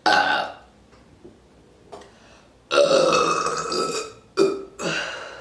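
Loud burps brought up by gulped Squirt grapefruit soda: a short burp at the start, a long drawn-out one about two and a half seconds in, then two shorter ones near the end.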